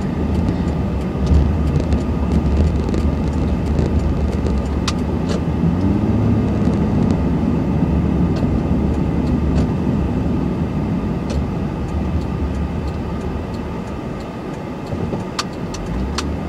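Honda Ridgeline's V6 engine and road noise while towing a trailer of about 3,000 pounds, heard from the cab: a steady low rumble whose engine note rises and falls slightly midway, with a few scattered clicks and knocks.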